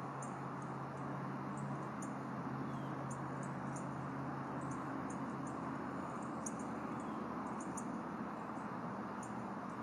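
Outdoor ambience picked up by an eagle nest camera's microphone: a steady rushing hiss with a low hum under it, dotted with short, very high chirps two or three times a second.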